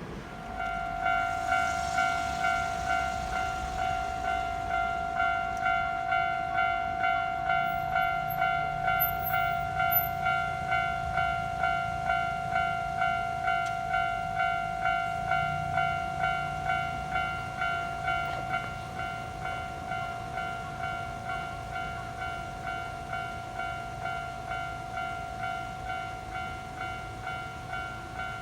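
Japanese railway level crossing warning bell starting up and ringing in an even repeating ding, about one and a half rings a second. A train's low rumble rises under it in the middle stretch.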